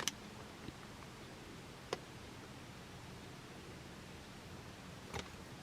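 Quiet room with a few faint, sharp clicks and ticks, one near the start, one about two seconds in and one near the end, from hands working rhinestone mesh and hot glue onto a glass vase.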